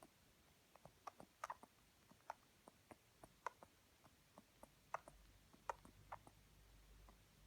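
A sleeping Cavachon puppy's faint snoring, heard as soft, irregular clicks, about two or three a second.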